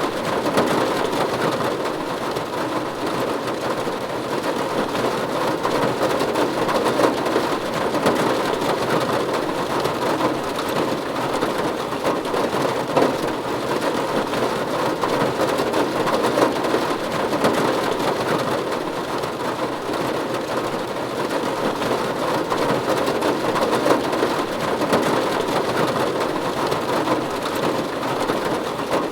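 Steady, even rain falling on a roof, a dense patter of drops with no breaks.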